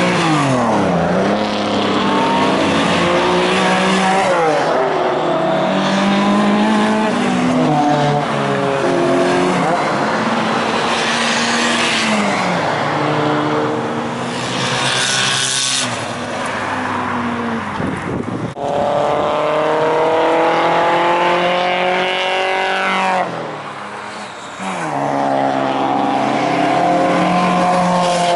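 Classic cars driving past one after another on a race circuit, their engines revving and falling in pitch as each one goes by, with changes in engine note several times.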